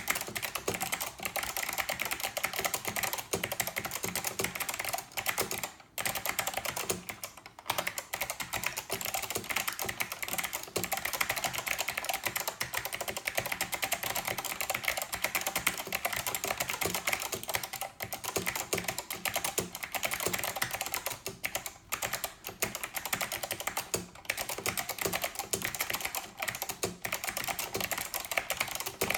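Fast, continuous typing on a Northgate Omnikey 102 mechanical keyboard with Alps SKCM Blue switches, the dense run of key clicks pausing only briefly a few times.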